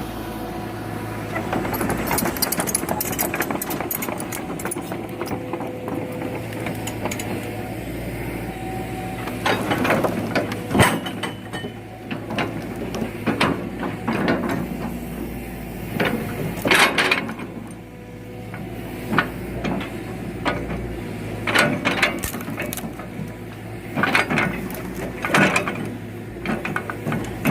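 Excavator engine running steadily under repeated knocks, clunks and creaks of rubberwood logs being grabbed and loaded onto a truck.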